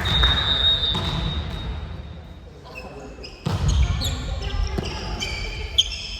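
Indoor volleyball rally sounds. A long steady whistle blast opens it. Then come shoes squeaking on the court floor and the thud of the ball being struck, about halfway through.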